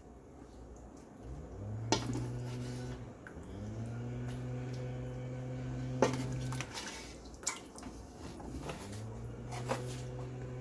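A metal spoon clinking and scraping against a cooking pot while curry chicken is served out, with four sharp clinks. A low steady hum starts and stops three times underneath.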